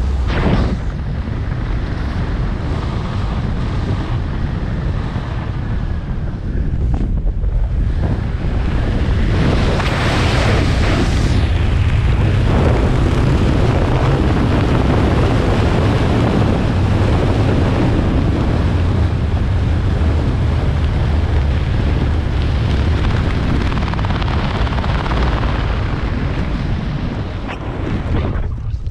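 Wind rushing over the camera's microphone as a skydiver descends under an open parachute canopy. The rush grows louder about ten seconds in. It eases a little near the end as she comes in over the grass to land.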